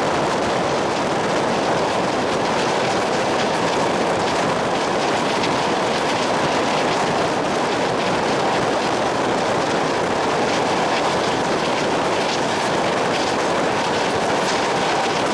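A train running steadily along the rails, a dense even rumble that holds without a break.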